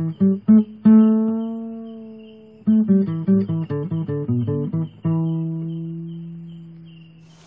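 Acoustic guitar music: two quick runs of plucked notes, each ending on a held note that rings out and fades, the last a low note dying away. A faint steady ticking sounds behind it.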